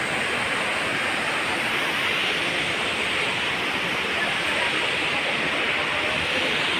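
Steady rush of falling water from Elephant Falls, an even, unbroken hiss that neither rises nor falls.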